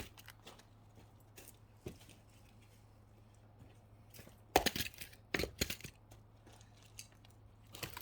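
Axe blows splitting firewood rounds: a sharp chop about halfway in, followed by a couple more knocks of wood, and another group of knocks near the end. A faint steady low hum runs underneath.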